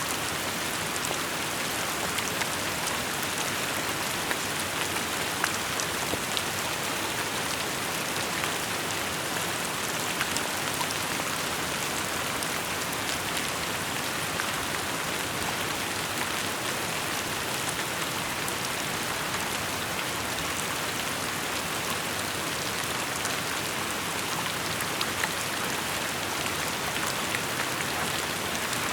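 Steady rainfall: an even hiss of rain with scattered sharper taps of single drops hitting surfaces.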